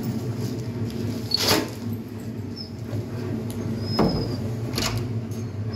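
A few sharp knocks and scrapes, three of them standing out, over a steady low hum.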